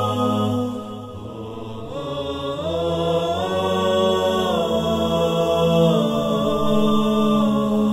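A cappella chanted vocal intro music: voices hold long notes over a low drone, stepping up in pitch and back down again.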